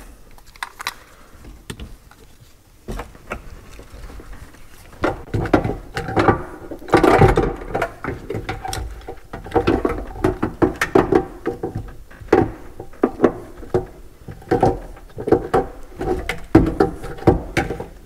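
Handling noises from a seatbelt and plastic interior trim being worked into place: irregular knocks, clicks and rustling as the red belt webbing is pulled and fed through the trim panel. Quieter for the first few seconds, then busier, with the densest knocking around the middle.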